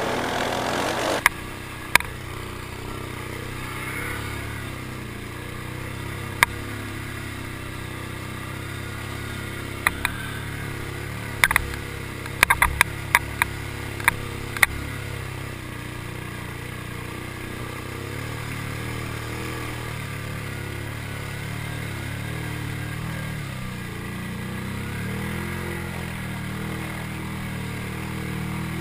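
Can-Am Renegade 800 ATV's V-twin engine running under load as the quad pushes through deep water. The engine note wavers up and down in the second half, with scattered sharp knocks, most of them clustered around the middle.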